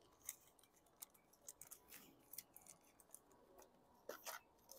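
Faint crinkling of a small plastic zip bag and light clicking of small plastic parts in a plastic box as a hand sorts through them, with a couple of slightly louder clicks about four seconds in.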